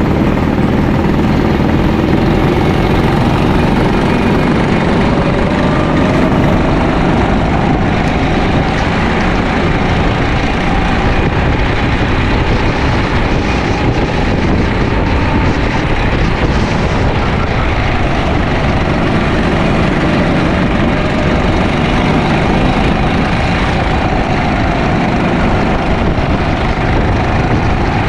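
Sodi LR5 rental go-kart engine heard onboard, running hard without a break, its pitch rising and falling gently as it gains and loses speed.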